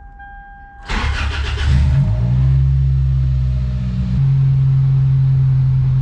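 Toyota Celica's four-cylinder engine starting about a second in: it cranks, catches with a rev flare, then settles to a steady idle. Before it cranks, a steady electronic dashboard tone is sounding.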